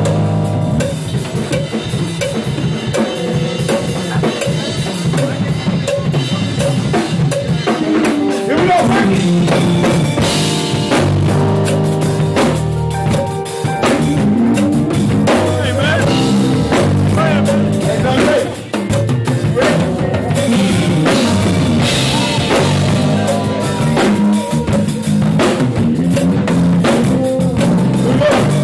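Drum kits played hard and fast in a shed jam: dense kick, snare and cymbal work, with keyboard chords and bass notes sustaining underneath. It drops back briefly about two-thirds of the way through.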